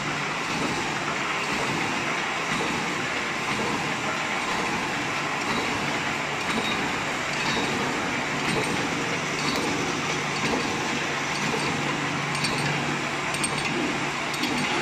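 Automatic welded wire mesh machine running in production, a steady mechanical clatter with a light click roughly once a second as the mesh is welded and wound onto the roller.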